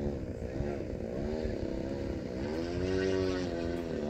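Motor and propeller of a radio-controlled Extreme Flight Laser aerobatic model plane flying overhead, its pitch rising and falling again and again as it manoeuvres, with a longer, louder swell about two to three seconds in.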